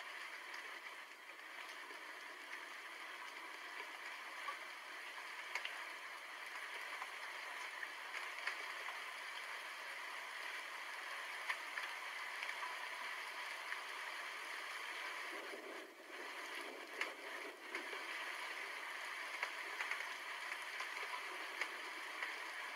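Steady rain falling, an even hiss dotted with the sharp ticks of single drops; no thunder.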